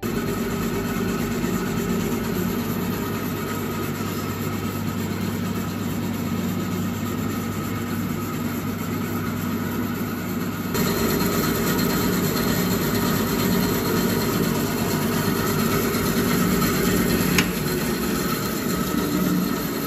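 Startrite 352 bandsaw running idle: a steady three-phase motor hum with blade and wheel whir. It gets a little louder about halfway through, and there is one sharp click near the end.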